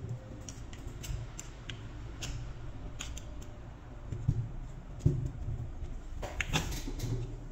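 Small metallic clicks and scrapes of a thin screwdriver prying at the seam of a Makita DTW1001 impact wrench's metal hammer case, working it loose from the gear housing. A few louder knocks come in the second half, over a low steady hum.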